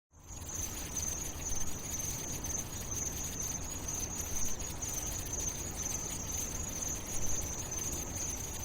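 Steady ambient noise, a high continuous insect-like chirring over a low rumble, that starts suddenly out of silence as a track's intro.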